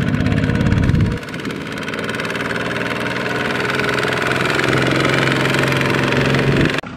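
Single-cylinder diesel engines of two-wheel walking tractors running steadily as they pull trailers. About a second in, the sound changes abruptly to a single tractor's engine, which runs on evenly and then breaks off suddenly just before the end.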